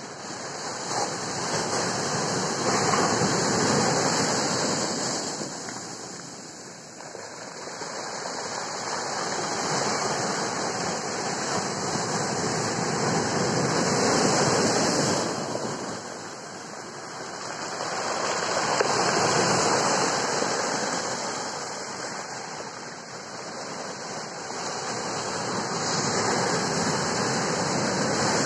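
Ocean surf breaking and washing up a beach of dark sand and rounded stones, the rush of water swelling and ebbing about four times, each surge lasting several seconds.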